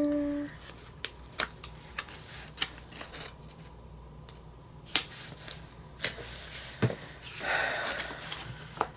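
Paper sticker sheets and planner pages being handled as stickers are peeled off and pressed down: scattered light clicks and taps, then a short paper rustle near the end.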